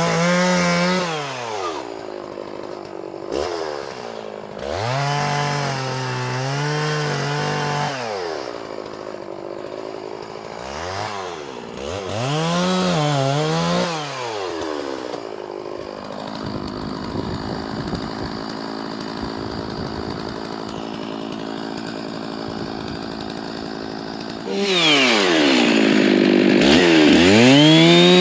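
Stihl MS660 two-stroke chainsaw revved up and down in a series of bursts, then running at a low steady speed for several seconds. About 25 seconds in it revs up hard and holds at high speed.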